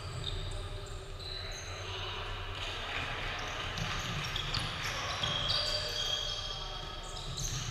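Basketball game on a hardwood court: the ball bouncing, with many short high sneaker squeaks and players' voices echoing in a large gym.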